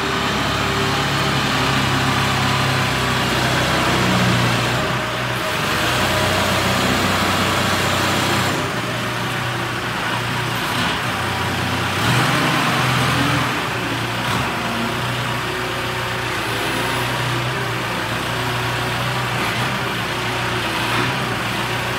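Gehl RS8-42 telehandler's four-cylinder John Deere diesel engine running, its note shifting up and down a few times.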